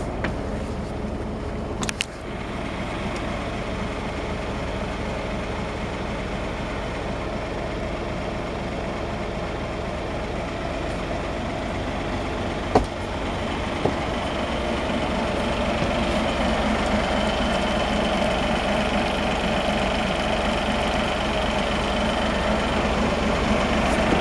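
An engine idling steadily, growing a little louder in the second half, with one sharp knock about halfway through.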